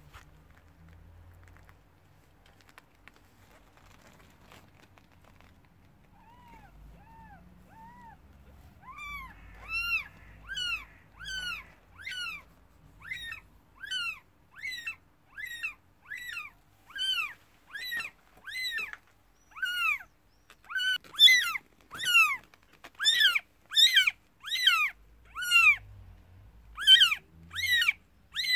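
Newborn kittens, five or six days old, mewing: short thin cries, each rising and falling in pitch, begin faintly a few seconds in, then repeat about one and a half times a second and grow louder toward the end.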